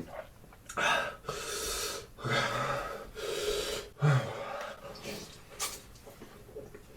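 A person gasping, sniffing and breathing hard in about five quick bursts while eating very spicy fire noodles, the mouth burning from the heat; a short click follows a couple of seconds later.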